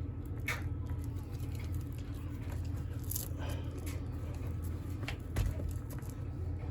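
A few short plastic clicks and scrapes as the shell of a Squawkers McCaw toy parrot is pried apart at its clips, over a steady low hum.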